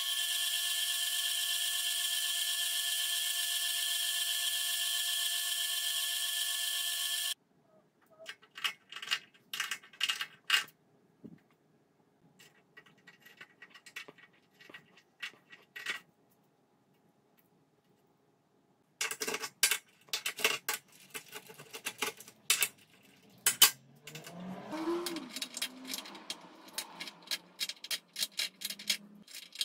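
Electric bench belt grinder running steadily with a high motor whine, cutting off abruptly about seven seconds in. Then a long run of sharp scraping clicks and taps, loudest and thickest in the last ten seconds, as a carbide-insert-tipped hand tool is pressed and dragged in short strokes across a steel welding table.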